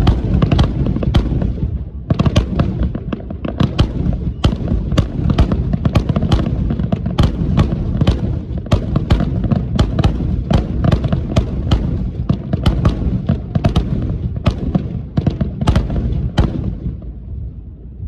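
Fireworks display with many shells bursting in quick succession: sharp overlapping bangs over a continuous deep rumble, with a short lull about two seconds in.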